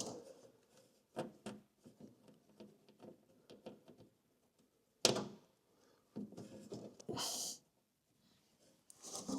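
Faint scattered clicks and taps of a small metal plate and its screws being handled and fitted by hand, with one sharper knock about five seconds in and a short scraping rustle around seven seconds.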